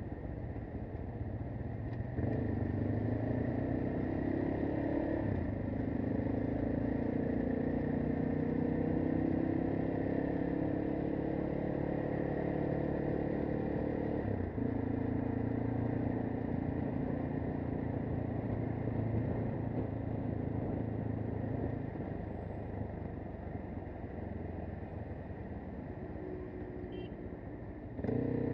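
AKT TT 250 Adventour's single-cylinder engine running at low speed in traffic. It pulls away about two seconds in with its note climbing slowly, eases off about halfway, then runs quieter near the end.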